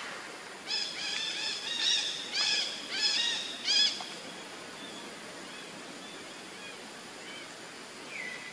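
A rapid run of high, arched chirping calls, several a second, for about three seconds, then a few fainter single calls, over a steady hiss.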